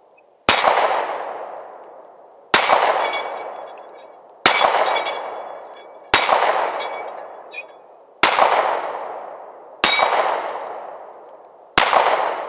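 Handgun fired slowly, seven single shots about two seconds apart, each followed by a long fading echo.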